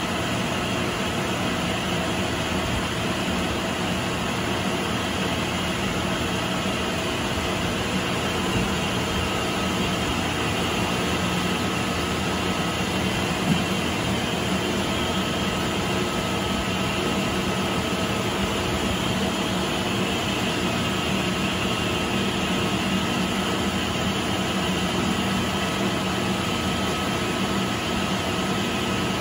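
Electric-motor-driven centrifugal pump running: a steady machine drone with a faint high whine that drops out briefly midway. A small tap about halfway through.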